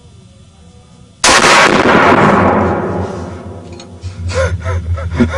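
A single loud gunshot about a second in, followed by a long rolling echo that dies away over about two seconds. Voices start near the end.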